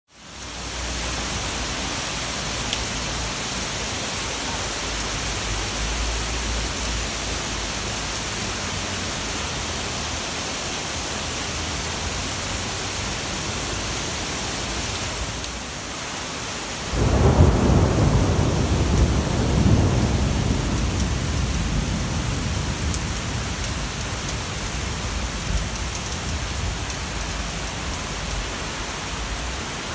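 Heavy rain falling steadily in a thunderstorm, with a loud rumble of thunder that starts suddenly a little over halfway through and dies away over several seconds.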